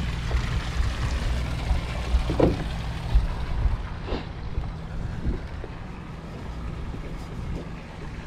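Wind buffeting the microphone as a steady low rumble, with a few short squeaks about two and four seconds in.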